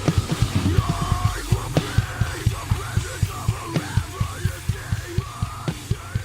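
Heavy metal drumming on a drum kit close-miked with the iSk DSM-7A set: fast, even bass drum strokes, several a second, with snare and cymbal hits. A pitched part bends up and down over the drums.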